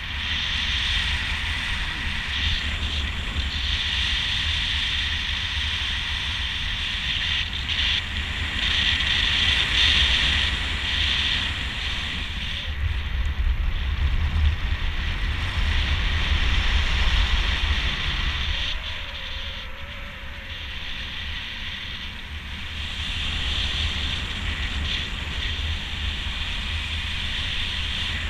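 Wind rushing over the microphone of a camera carried in flight under a speedflying miniwing: a steady low buffeting rumble with a hiss. It swells louder about a third of the way in and again around the middle, then eases off a little.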